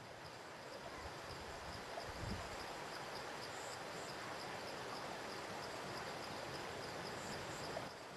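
Rural outdoor ambience: a steady noise bed with insects chirping in an even, high-pitched pulse a couple of times a second, and a brief low rumble about two seconds in. The ambience drops away just before the end.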